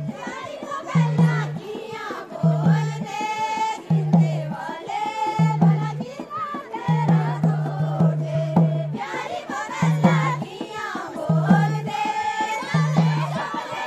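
Folk dance music: a deep drum struck in a steady beat about every second and a half, under a wavering melody.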